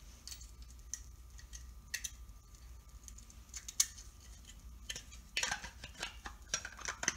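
Sparse light clicks and ticks of small hardware and plastic being handled, with a brief rustle about five and a half seconds in and a few more clicks near the end.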